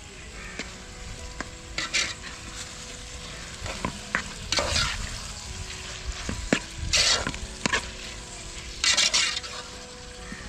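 Snails frying in oil with onion and tomato in a metal pot, stirred with a perforated steel ladle. The ladle scrapes and clinks against the pot in short bursts every couple of seconds over a low sizzle.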